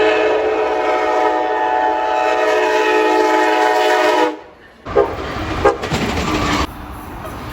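A train horn sounding one long steady blast that cuts off sharply about four seconds in. It is followed by the noisier rumble of a moving train with a few short knocks.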